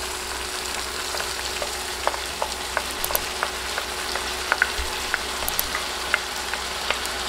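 Hot oil in a frying pan sizzling steadily with scattered crackles and pops as raw spiced masoor dal with potato and tomato is tipped in on top of frying onions.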